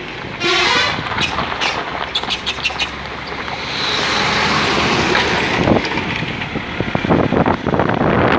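Motorcycle riding down a winding hill road with wind noise on the microphone; a short horn blast sounds just after the start, and the rush of a lorry passing close alongside swells about four seconds in.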